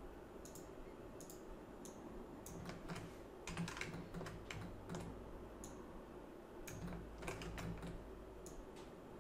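Faint, irregular clicking of a computer mouse and keyboard, a dozen or more clicks at uneven intervals over a low steady hum.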